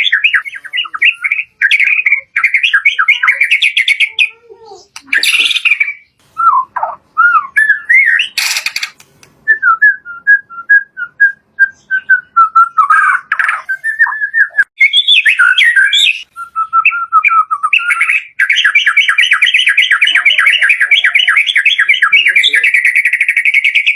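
White-rumped shama (murai batu) in full varied song. It gives fast rattling trills, whistled phrases and a run of short repeated notes, then a long rapid trill from about three-quarters of the way in. A brief harsh noise falls about a third of the way in.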